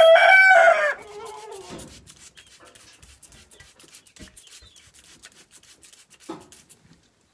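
A rooster crowing, the call ending about a second in. After it, only faint rubbing and light clicks from the hen being handled.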